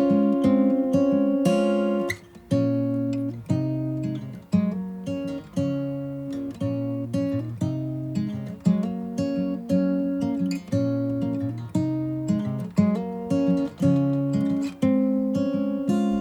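Background music: an acoustic guitar playing strummed chords at an unhurried pace.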